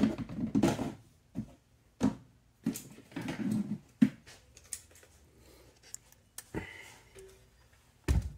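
Irregular handling noises: scraping and rubbing in the first second, then a series of separate knocks and rubs, and a heavier thump near the end.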